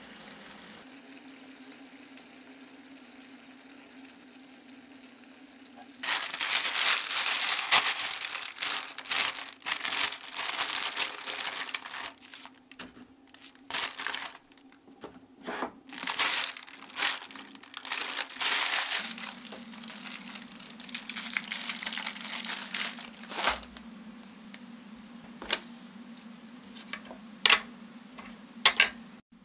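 Crisp crinkling and tearing from handling a crusty baguette, starting about six seconds in and coming in stops and starts for some thirteen seconds. Before and after it there is a faint steady hiss, with a few sharp clicks near the end.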